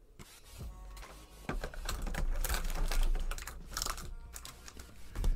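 Clear plastic packaging tray clicking and crackling as Pokémon booster packs are pried out of their slots, a run of quick clicks and rustles that is busiest in the middle.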